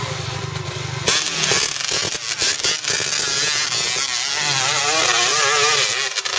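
Dirt bike engine running low and steady, then, after an abrupt change about a second in, revving hard with its pitch rising and falling as a bike climbs a steep dirt slope.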